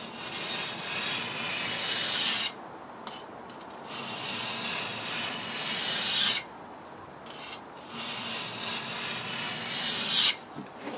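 Hanwei Tinker Viking sword blade drawn across a wet bench water stone in three long sharpening strokes, each about two and a half seconds, a scrape that gets louder toward the end of each stroke and stops sharply. The strokes are grinding a new edge bevel onto the sword's semi-sharp factory edge.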